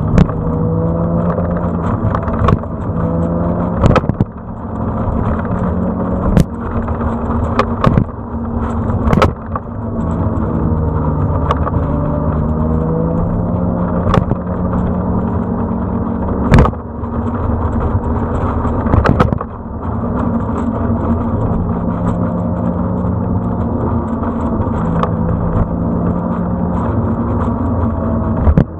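Vehicle engine running at cruising speed over steady road and wind noise, heard from the moving vehicle, its pitch holding level and shifting in steps now and then. Sharp knocks break in about ten times, the loudest about four seconds in and again near the middle.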